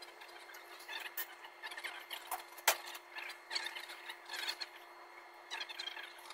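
Faint scattered clicks and rustles of hands handling a squeeze tube of RTV gasket maker over a steel transmission pan, with one sharper click a little under three seconds in, over a steady faint hum.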